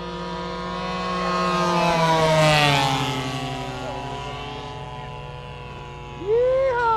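Radio-controlled model airplane's engine and propeller making a pass overhead, growing louder to a peak about two and a half seconds in, then dropping in pitch and fading as the plane flies away. Near the end comes a brief loud cry that rises and then falls in pitch.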